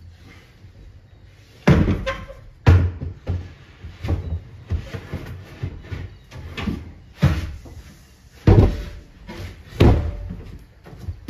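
Thumps and knocks of an empty sink base cabinet being picked up, tilted and carried, its box bumping as it is handled. About eight sharp knocks come at irregular intervals, the loudest about three seconds in and again past the middle.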